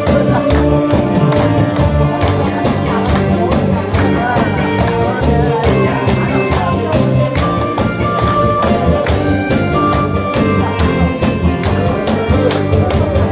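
Upbeat Korean trot backing track playing an instrumental passage with a steady beat of about two beats a second, the audience clapping along.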